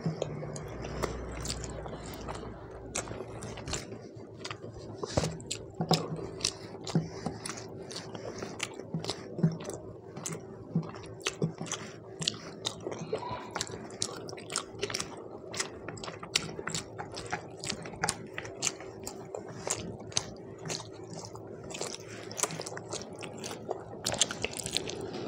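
Close-miked chewing of a mouthful of rice and mutton curry, full of wet mouth and lip clicks, with fingers mixing rice on a banana leaf. A faint steady hum runs underneath.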